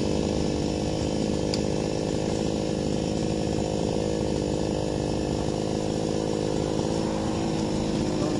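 Chainsaw engine running steadily at an even pitch.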